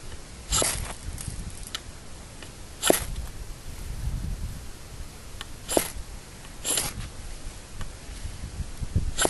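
Ferro rod being struck to throw sparks onto tinder: about five short, sharp rasping scrapes, one to three seconds apart.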